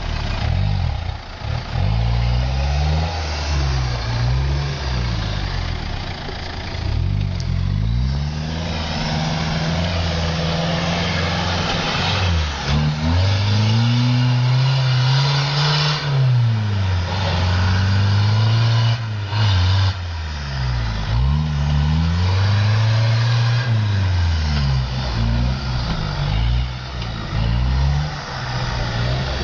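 Mitsubishi Pajero (Shogun) engine revving hard and easing off again and again as the 4x4 works through deep mud and snow, its pitch climbing and dropping every few seconds. Behind it is a steady hiss of tyres churning the mud.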